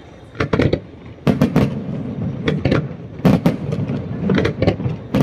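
Aerial fireworks shells bursting in quick succession: about a dozen sharp bangs in clusters over a steady low rumble.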